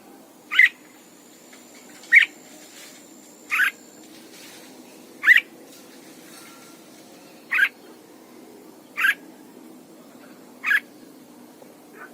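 Red-whiskered bulbul giving short calls, seven of them evenly spaced about one and a half seconds apart.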